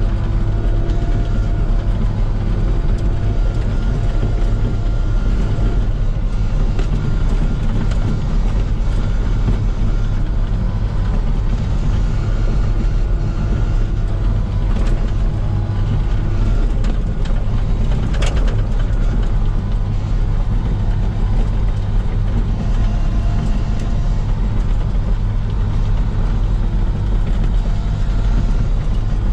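Komatsu PC16 mini excavator's diesel engine running steadily with a deep, even hum, and a single sharp click about eighteen seconds in.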